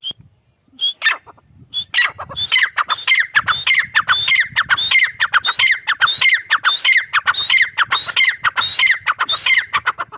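Grey francolin (teetar) calling: a loud, shrill, repeated call that starts as a few spaced notes and, about two seconds in, settles into a steady run of about two notes a second, each note sliding up and then dropping.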